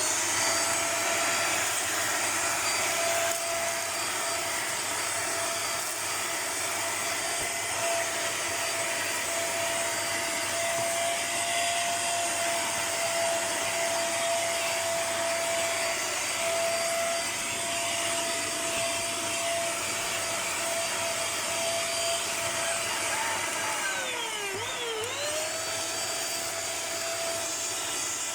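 Russell Taylors VC-20 handheld cyclone vacuum cleaner running, with a steady motor whine over rushing air. Near the end the whine sags sharply in pitch for about a second and then climbs back to speed.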